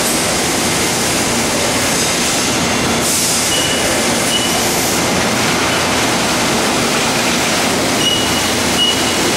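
Trumpf TC500R CNC punch press and its Sheetmaster sheet loader running while loading a sheet: a steady loud machine noise. A burst of air hiss comes about three seconds in, and short high squeals come midway and again near the end.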